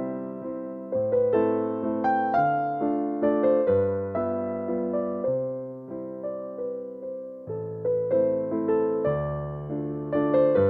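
Background music: a gentle piano piece, with chords and melody notes struck and left to ring and fade.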